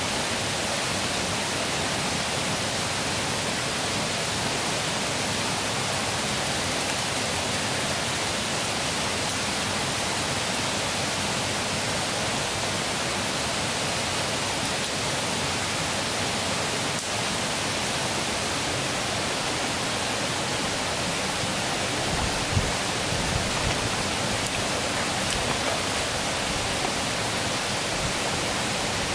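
Rushing water of a rocky forest stream, a steady even hiss, with a few low thumps about three-quarters of the way through.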